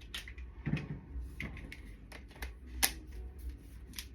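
Scattered small clicks and rustles of hands handling hair and a hair-styling tool, over a low steady hum.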